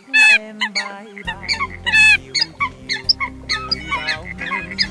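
Eurasian coots calling: many short, sharp calls in quick succession, with two louder, longer calls about a quarter second and two seconds in. Background music runs underneath.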